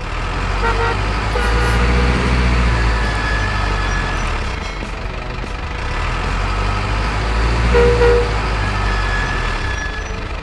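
Heavy truck engine running with a deep rumble that swells and eases twice, with a few short high tones over it.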